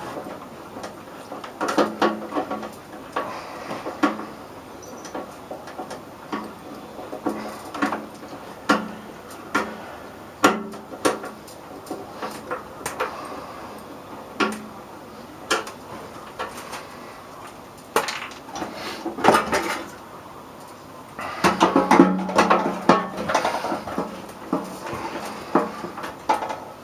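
Tools and loose metal parts clinking and knocking against the sheet-metal chassis of a microwave oven being dismantled, in scattered single knocks, with a busier run of clattering about 21 seconds in.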